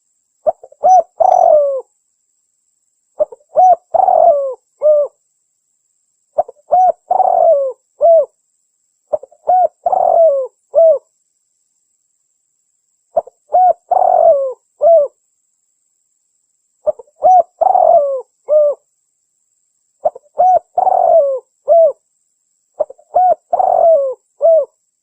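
Spotted dove (tekukur) cooing as a bird-lure call: eight short phrases of several coos each, repeated every three to four seconds with dead silence between.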